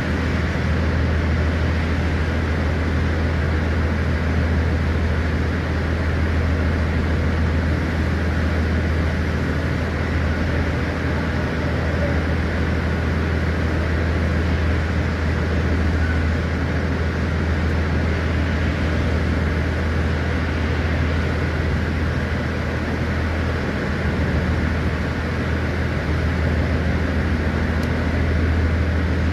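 Steady low machine hum under an even rushing noise, unchanging throughout.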